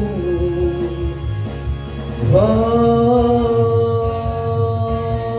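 A voice singing long held notes in a pop ballad over a backing track; a little over two seconds in, it slides up into a higher note and holds it.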